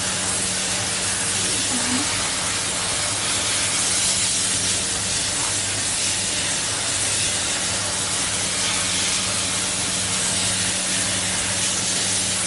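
Cryonic carbon dioxide cryotherapy spray gun hissing steadily as it jets −78 °C carbon dioxide onto the skin to chill it rapidly, with a faint low steady hum underneath.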